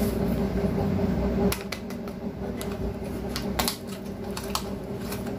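Light clicks and knocks of kitchen handling: a cardboard spice box being set down and the lid taken off a small steel container. A steady low hum under the start stops about a second and a half in.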